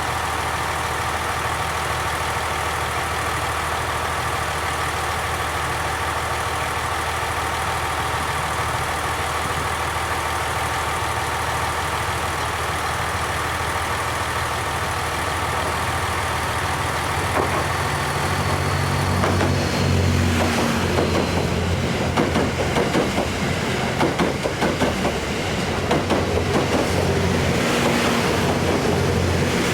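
Diesel train engine idling steadily. Past the halfway point the engine note rises and grows louder, and wheels begin clicking rhythmically over rail joints as the train gets under way.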